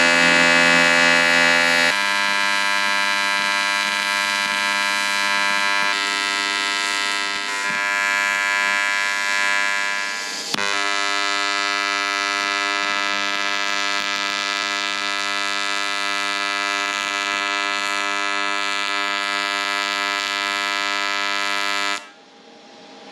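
AC TIG welding arc on aluminium from a YesWelder CT2050, a steady electric buzz that changes in tone about 2, 6 and 10 seconds in and cuts off abruptly near the end.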